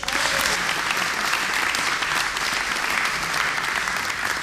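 Audience clapping together in applause for a prize winner as his name is called. It starts abruptly and holds steady throughout.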